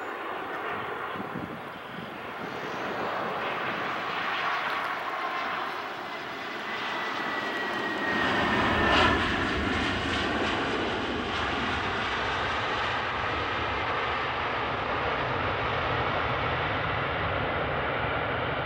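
Airbus A320-232 jet airliner with IAE V2500 turbofans landing: steady jet engine noise on the flare, then about eight seconds in the noise grows louder and deeper, peaking near nine seconds, as the airliner touches down and rolls out along the runway, with a faint falling whine just before.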